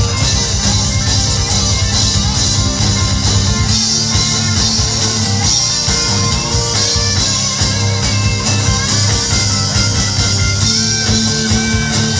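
Live band playing an instrumental stretch with no singing: electric guitar lead over bass and drums, heard from the audience through the stage PA.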